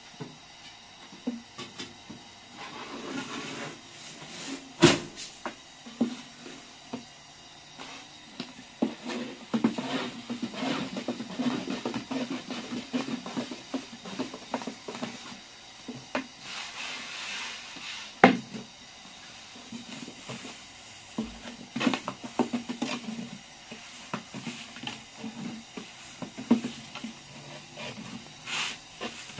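Flatbread dough being rolled out with a long thin wooden rolling pin on a floured wooden board: the rolling rumble of the pin with irregular wooden clicks and knocks as it is lifted and set down, two knocks much sharper than the rest.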